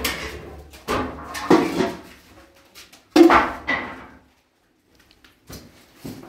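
Metal rods and other household clutter being handled and moved: a series of clattering knocks and rustles, the loudest about three seconds in, followed by a short lull and a few lighter knocks near the end.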